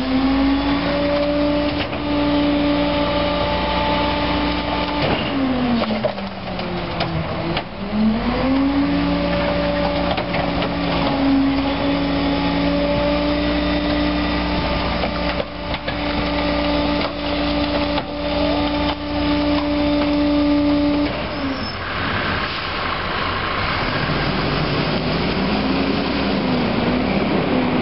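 Rear-loader garbage truck's engine sped up to drive the hydraulic packer through a compaction cycle, a steady drone that dips once about six seconds in, rises again and holds, then drops away about 21 seconds in. Rougher engine noise follows near the end.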